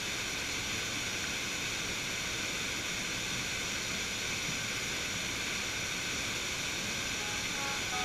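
Waterfall and the cascading stream below it rushing steadily, an even noise with no breaks. Faint music comes in near the end.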